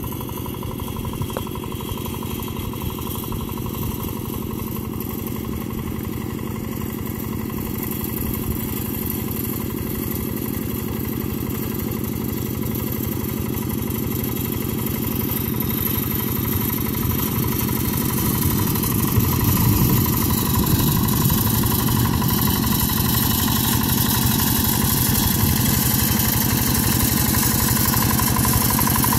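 Two-wheel hand tractor's engine running steadily while pulling a ride-on leveller through the wet paddy mud, growing louder as it comes nearer.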